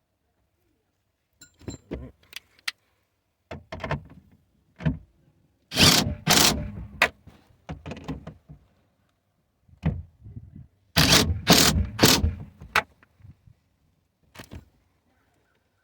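Handling noises from work on a car's taillight and wiring: scattered clicks and knocks, with two louder clusters of rattling and knocking about six and eleven seconds in.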